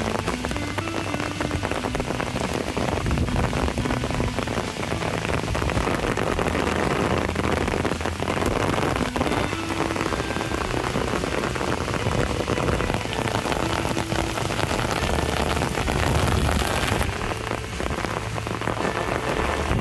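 Rain falling steadily, a dense, even patter of drops.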